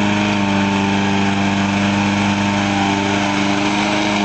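A small single-cylinder lawnmower engine, fuelled on ethanol alone, running steadily at high speed under load while it drives the mower across the grass. The pitch holds steady.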